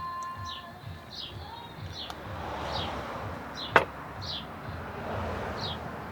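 A bird giving a short, falling chirp over and over, about twice a second, with one sharp click about four seconds in.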